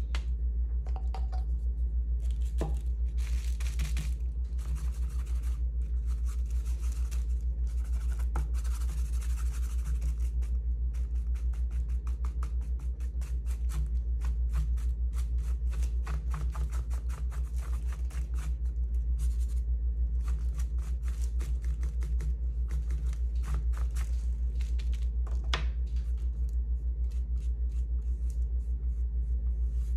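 Repeated short scraping strokes of a painting tool working acrylic paint, some coming in quick runs, over a steady low hum.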